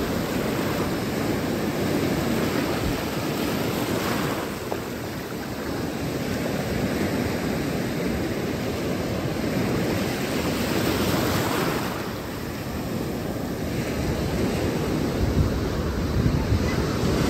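Surf washing onto the beach, a steady rush that swells and eases every few seconds, with wind buffeting the microphone.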